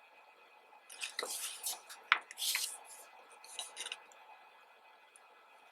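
Pages of a glossy photobook being turned by hand: a few short paper rustles with a sharp crackle about two seconds in.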